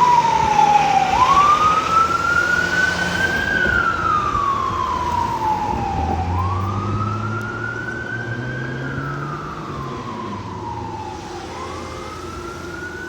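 Fire truck siren sounding a slow wail, rising quickly and falling gradually about every five seconds, with the truck's engine running underneath. The sound grows steadily fainter as the truck moves off.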